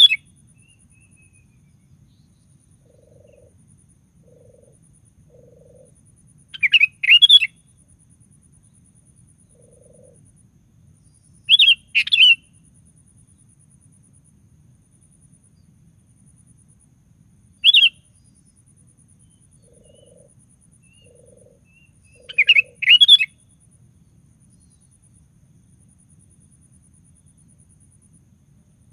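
Sooty-headed bulbul (kutilang) singing in short phrases of a few quick notes, four times with gaps of about five seconds between them.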